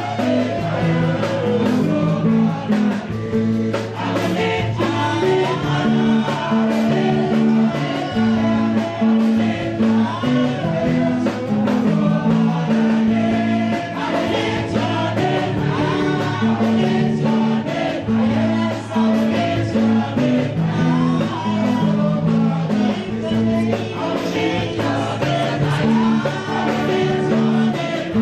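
Gospel worship music: voices singing over a band, with a bass line moving through held notes.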